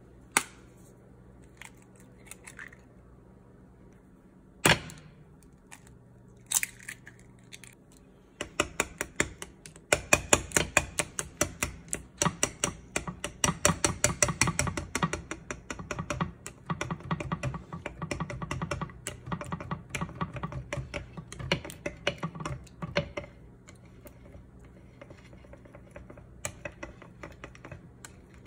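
Eggs cracked against a glass mixing bowl, sharp single knocks in the first few seconds, the loudest about five seconds in. Then chopsticks beat the eggs into the crepe batter, rapid clicking against the glass from about eight seconds in, getting lighter and sparser for the last few seconds.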